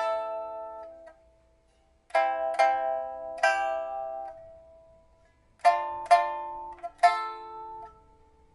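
Pipa (1991 Gao Zhanchun instrument of Burmese rosewood, with a new soundboard, frets and steel first string) played slowly: short groups of two or three plucked notes, each ringing and fading away, with brief gaps between the phrases.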